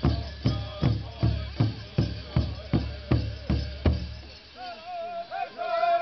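Powwow-style big drum struck in a steady beat, about two and a half beats a second, with group singing underneath. About four seconds in the drumming stops and a high, wavering sung phrase begins.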